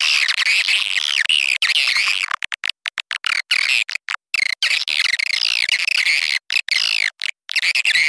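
Swiftlet lure call: a recorded track of swiftlet twittering, played to draw swiftlets to a nest house. Dense, rapid high chirps, chopped by many short gaps of dead silence, most of them about two to four seconds in.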